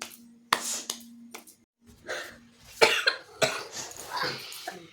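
A woman coughing in repeated short fits, a couple of coughs at first and then a quick run of them in the second half. The coughing comes from the fumes of burning red chilli irritating her throat.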